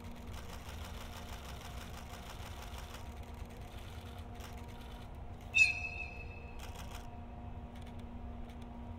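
EF64 electric locomotive hauling 12-series coaches, approaching slowly with a steady low rumble and faint hum and some light rapid clicking. A little past halfway comes a single short, loud, high-pitched shriek that drops slightly in pitch and fades out over about a second.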